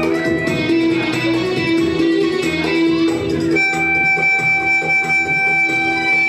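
Violin bowed through a melody of changing notes, then holding one long steady note from a little past halfway.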